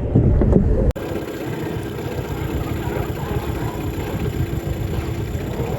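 Small boat's outboard motor running steadily, after a sudden cut about a second in from louder low rumbling noise.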